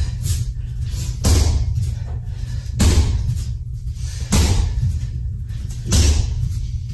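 Rear-leg round kicks landing on a freestanding heavy bag: four heavy thuds about a second and a half apart, over background music.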